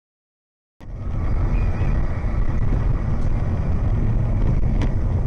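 Steady low rumble of a car driving, the engine and road noise starting abruptly after a moment of dead silence, with a few faint clicks.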